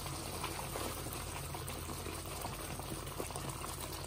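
Tomato and spice masala bubbling and sizzling steadily in oil in an aluminium karahi, at the bhuna stage where the masala is fried down.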